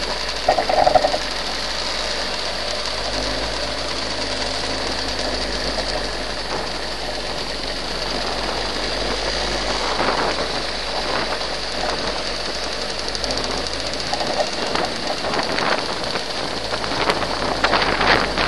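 Two-stroke single-cylinder engine of a Vespa PX scooter running steadily on the move, over an even hiss of wind and road noise.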